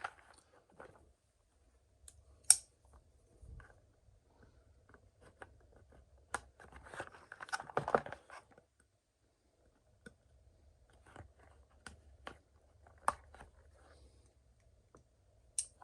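Hands unwrapping a boxed knife from bubble wrap: scattered sharp clicks and rustling of the wrap, with one loud click about two and a half seconds in and a longer crinkling stretch around eight seconds in.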